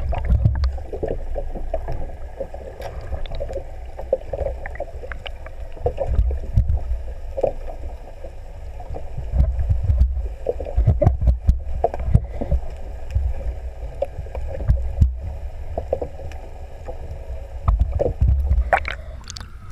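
Muffled underwater sound from a submerged camera: a low rumble of water moving against the housing, with scattered knocks and clicks. Near the end there is a splash as it breaks the surface.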